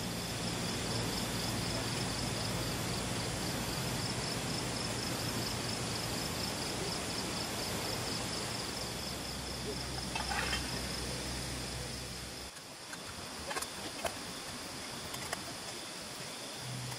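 Night insects chirping in a steady, fast-pulsing trill over a low steady hum that stops suddenly about twelve seconds in. After that come a few light clinks of stainless steel plates being handled at a dish rack.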